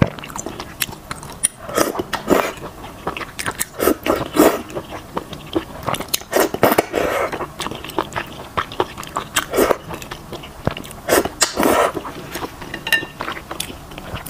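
Close-miked eating of a bowl of noodles in broth (malatang with wide potato noodles): wet chewing and short slurps, coming in bursts several times.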